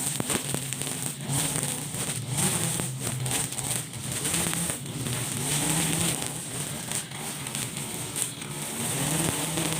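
Brush cutter with a Honda GX35 four-stroke engine running at high speed, its pitch wavering slightly, with many short crackles from the cutting head.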